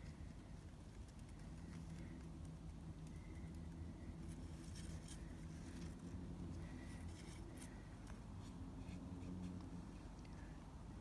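Faint scattered rustling and light clicks, a little busier around the middle, over a steady low hum.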